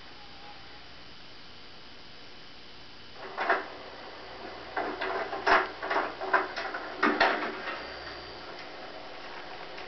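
A steady low hum, then from about three seconds in a run of irregular knocks and clattering thuds, over a dozen in all, the loudest about halfway through, with one more faint knock near the end.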